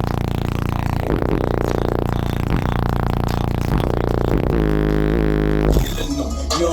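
Music of long, held synthesizer-like tones that bend in pitch now and then over a deep bass, changing character near the end.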